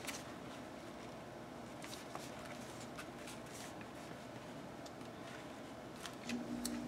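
Faint rustling and a few light taps and clicks of paper and jute twine being handled and positioned by hand.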